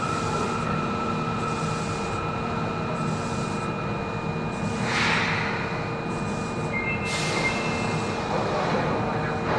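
Interior running sound of an Osaka Municipal Subway Series 10 car in a tunnel: steady wheel-and-rail rumble under a constant electrical whine. A higher whine fades out a little before halfway, a short hiss comes about halfway through, and two brief high tones sound together near the end.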